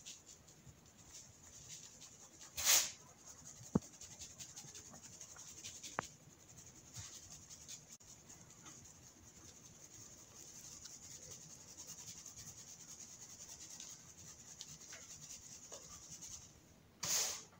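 Dry baking-soda crumbles being crushed and scraped under a metal bowl: a faint, steady gritty hiss, with a few sharp clicks and a louder crunch near the end.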